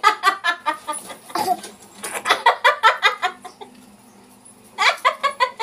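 Comic chicken-like clucking in three bursts of quick pitched pulses, about eight a second, aimed at making the listeners laugh.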